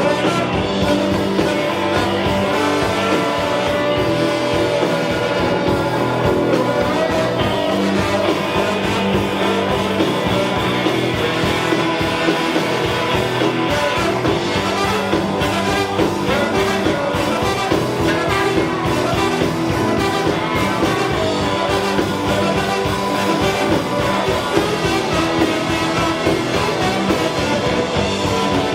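Live rock band playing a guitar-driven instrumental stretch: electric guitar over bass and a steady drum beat, loud and continuous.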